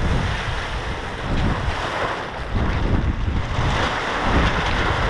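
Wind buffeting the microphone in gusts, with a large plastic sheet flapping and rustling as it is pulled off a van.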